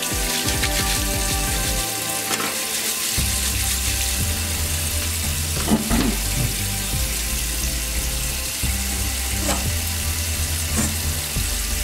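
Tap water running and splashing into a bathroom sink while a wave brush's bristles are scrubbed with shampoo under the stream, with a few faint knocks. A background music track with a steady bass line plays underneath.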